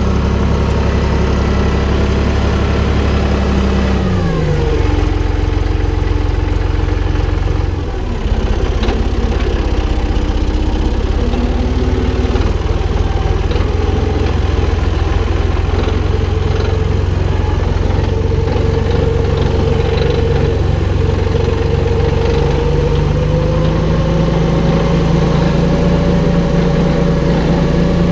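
Valtra BF-75 tractor's diesel engine running, its revs dropping about four seconds in and holding lower, then climbing slightly near the end.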